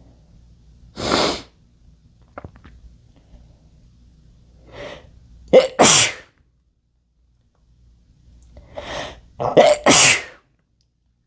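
A man sneezing: two loud sneezes about four seconds apart, each following a quick breath in, after a shorter forceful burst of breath about a second in.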